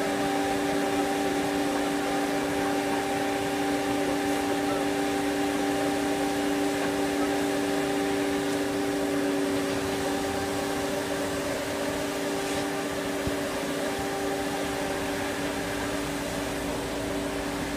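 Large horizontal log band saw running and sawing lengthwise through a log: a steady machine hum with two constant low tones over an even whir.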